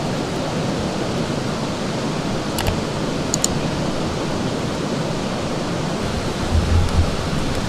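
Steady rush of flowing river water, with a few sharp crackles from the campfire kindling catching about three seconds in and a couple of low thumps near the end.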